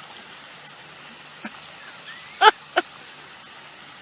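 Two short, loud calls from an animal, a third of a second apart, about two and a half seconds in, over a steady faint hiss.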